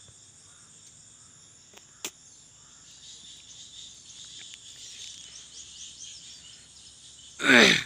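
Steady high-pitched chorus of crickets and other insects, with a single sharp click about two seconds in. Near the end, a short loud vocal sound from a person cuts in.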